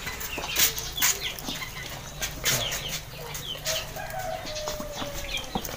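Domestic chickens clucking and peeping, with short downward chirps, one longer, slightly falling call about four seconds in, and many sharp clicks and taps.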